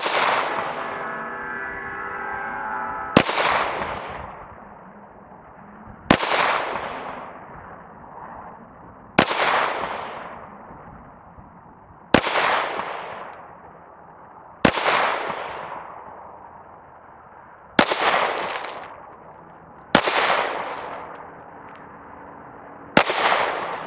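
Glock 19 9mm pistol fired nine times in slow, deliberate single shots about two to three seconds apart, each crack trailing off in a long echo. A ringing tone holds through the first three seconds.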